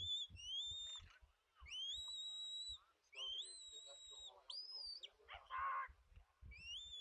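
A sheepdog handler's whistle giving commands to a working Border Collie: a series of high whistles that slide up and then hold, some long and one dropping away. A short, rougher call comes a little past the middle.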